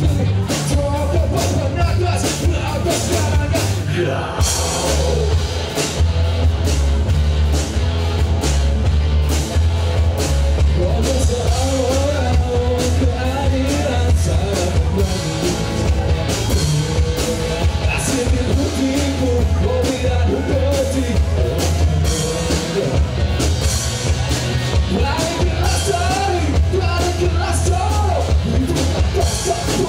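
Live rock band playing loudly through a PA: a male singer over electric guitars and a drum kit, with a heavy, steady low end and constant drum hits.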